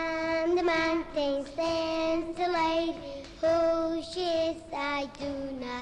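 A child singing alone, a melody of short held notes broken by brief pauses between phrases.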